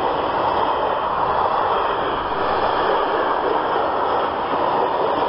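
Freight train of open box wagons and tank wagons rolling past: a steady, loud rush and rumble of steel wheels on the rails.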